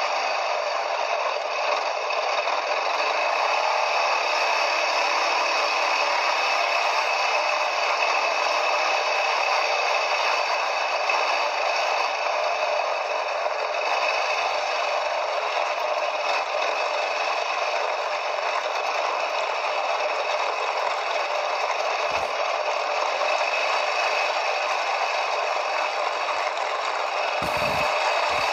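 Quad bike (ATV) riding along with its engine running steadily and the machine rattling over the ground. There are a couple of short knocks near the end.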